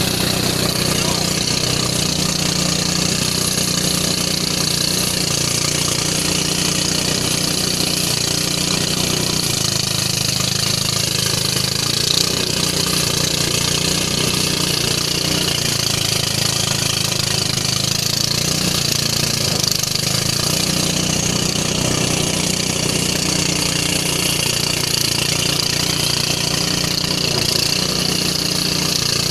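Engine-driven rice threshing machine running steadily while rice stalks are fed into its drum, a continuous engine hum under a steady rushing noise.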